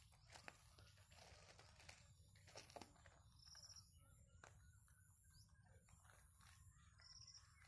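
Near silence: faint outdoor garden ambience with soft scattered rustles and clicks, and a short high chirp twice.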